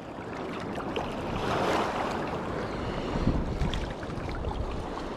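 Steady outdoor noise of wind buffeting the microphone over the rush of river water, swelling slightly about two seconds in.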